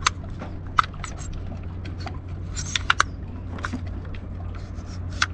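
Sharp plastic clicks and taps of a Spinlock rope clutch's housing being handled and fitted by hand: about six separate clicks, two in quick succession about three seconds in, over a steady low hum.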